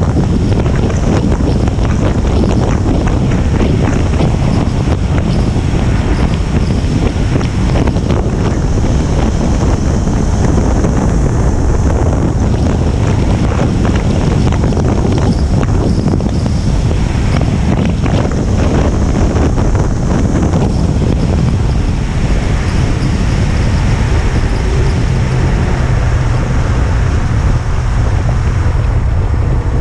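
2018 KTM Duke 390's single-cylinder engine and exhaust running at high speed inside a road tunnel, under heavy wind noise on the microphone.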